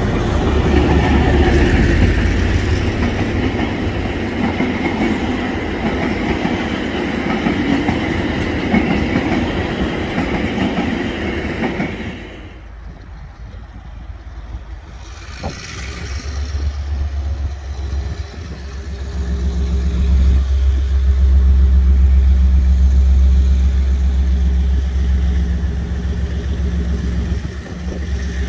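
DA-class diesel-electric locomotive and its carriages passing close, engine rumbling and wheels clattering on the rails. After a sudden cut to quieter sound, a deep steady diesel engine rumble builds up again and stays loud from about halfway on.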